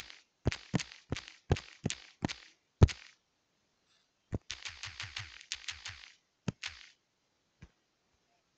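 Fingertip taps on a tablet's touchscreen keyboard while typing: eight sharp taps about three a second, one per letter of an eight-letter word. After a pause comes a quicker cluster of taps, with a few last taps near the end, as emojis are picked from the emoji panel.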